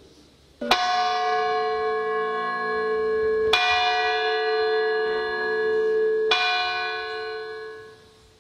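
A church bell tolling three times, the strokes about three seconds apart, each ringing on and slowly fading; the last dies away about eight seconds in.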